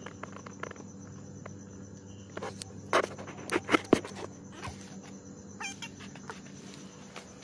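Steady background chirring of crickets, with scattered scuffs and knocks, the loudest a cluster about three to four seconds in.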